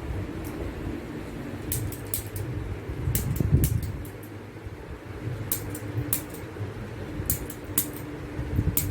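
A fan's steady hum in a small room, broken by several clusters of quick, sharp, high clicks, two to four at a time, with a soft low thump about three and a half seconds in.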